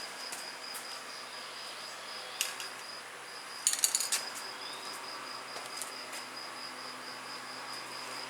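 A cricket chirps steadily in rapid, even pulses. A sharp click comes about two and a half seconds in, and a short clatter of louder clicks about four seconds in.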